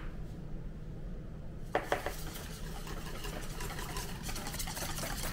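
A kitchen utensil stirring pumpkin pie batter in a bowl. After a quiet start, there are a couple of knocks against the bowl about two seconds in, then continuous quick scraping and clinking.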